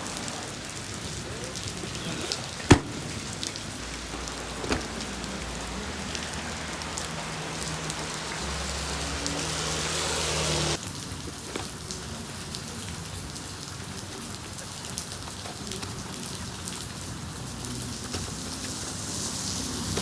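Steady rain falling on hard surfaces, with one sharp knock about three seconds in. Near the middle the rain sound changes abruptly and becomes duller.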